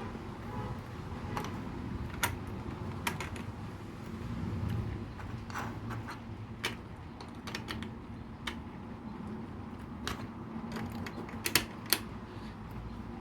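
LEGO pieces being handled and pressed together: scattered sharp plastic clicks, with the two loudest near the end, over a steady low background hum.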